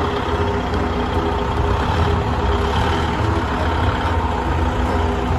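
Forklift engine running steadily, a loud low hum with a few steady tones over it.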